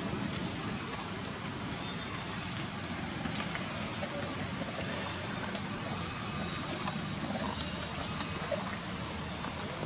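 Steady hissing outdoor background noise, with two faint short high chirps, one near the middle and one near the end.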